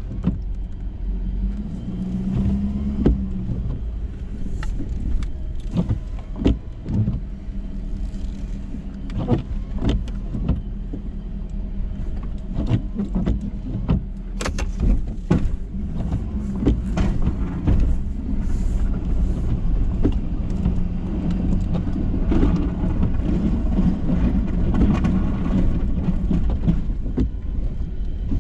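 Ford F-350 pickup with a Boss snow plow running steadily, its engine hum laid under frequent knocks and clunks. About two seconds in comes a brief whine that rises and falls.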